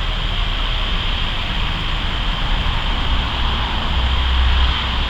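Steady low rumbling noise with an even hiss, the rumble growing stronger about three seconds in.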